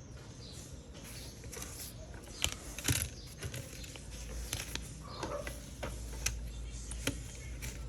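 Irregular light clicks and taps over a low steady hum, the two sharpest about two and a half and three seconds in.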